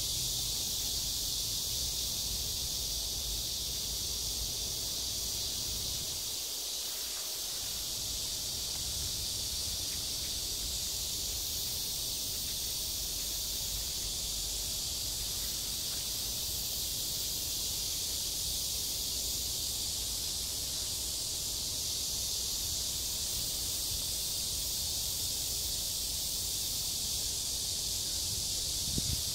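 Steady high-pitched insect chorus, an even hiss with no breaks, over a faint low rumble; a soft low bump near the end.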